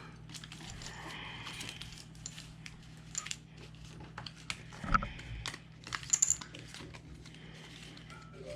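Hands sorting and restacking Pokémon trading cards: scattered soft taps and rustles, with a few sharper clicks about five and six seconds in.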